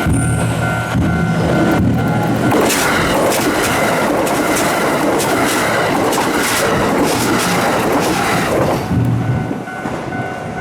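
Kintetsu Nara Line train passing over a level crossing, its wheels clattering for about six seconds in the middle, with the crossing's warning bell ringing steadily before and after it.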